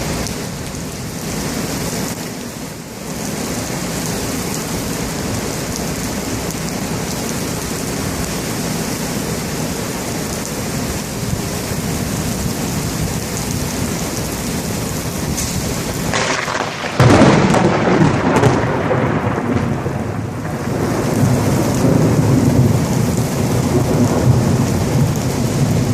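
Heavy thunderstorm rain pouring steadily, then about 17 seconds in a sudden loud thunderclap breaks out and rolls on as rumbling thunder under the rain.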